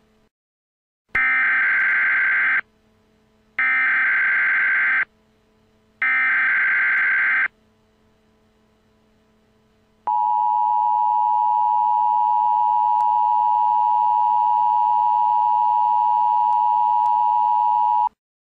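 Emergency Alert System signal: three harsh, buzzing SAME header data bursts about a second apart, then the steady EAS attention tone held for about eight seconds before cutting off suddenly.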